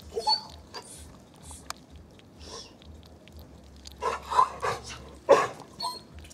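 Young hedgehog eating cream from a plastic dish at close range: irregular short smacking and snuffling sounds, scattered at first, then a quick cluster about four seconds in and the loudest one just after five seconds.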